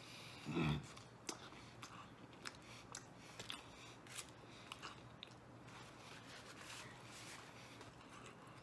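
Bite into a slice of deep-dish veggie pizza, then close-up chewing: a short louder mouthful sound about half a second in, followed by faint scattered crunches and wet mouth clicks.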